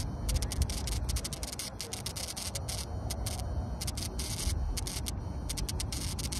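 Uneven low rumble with a flickering hiss above it, the kind of wind and handling noise a phone microphone picks up while carried outdoors; no engine is running.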